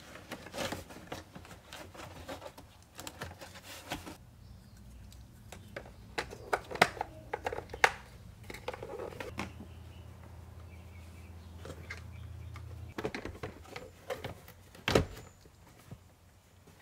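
Plastic under-dash trim panels of a Toyota JZX90 being handled and pressed back into place, giving scattered clicks and knocks. The sharpest come about seven and eight seconds in and again near the end.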